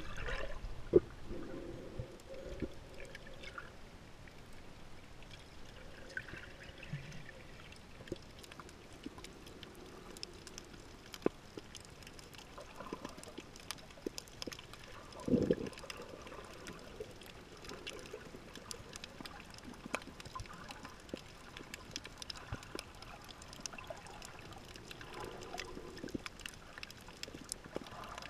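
Muffled underwater water sound picked up by a submerged camera: faint gurgling and sloshing with scattered small clicks, and one louder low gush about halfway through.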